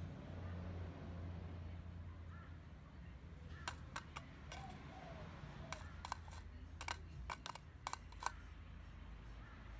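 Australian magpie's beak tapping and pecking at an upturned clear plastic bowl: about ten sharp clicks in an irregular run, starting a few seconds in and stopping near the end.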